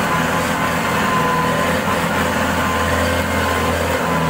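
Kubota M108S tractor's diesel engine running steadily while the loaded tractor drives along a rough track, with a thin steady whine above the engine note.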